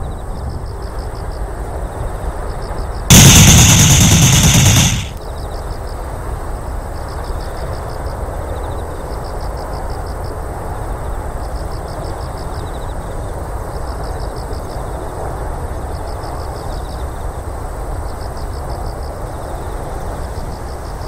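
Outdoor ambience of wind and a steady field hiss, with faint chirping in short bursts about every one and a half seconds. About three seconds in, a sudden, very loud, harsh blast cuts in, lasts about two seconds, and stops abruptly.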